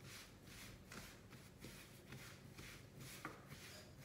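Hands rounding a wet bread dough on a floured countertop: faint, soft rubbing and patting, about twice a second.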